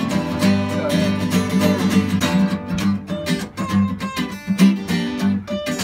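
Instrumental guitar duet: an acoustic guitar strums a steady rhythm while an acoustic lap slide guitar plays a melody over it, its notes gliding between pitches now and then.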